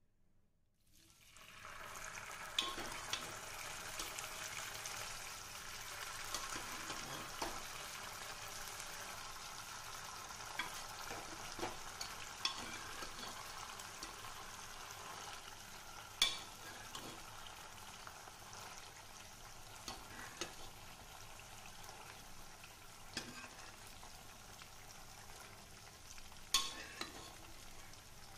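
Mutton phaal frying in a pan, a steady sizzle that starts about a second in as the pan is stirred, with occasional sharp clinks of the stirring utensil against the pan.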